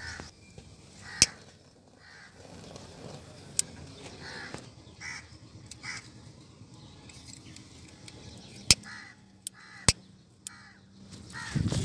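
Crows cawing now and then, with a few sharp clicks, the loudest a little over a second in and two more close together near the end.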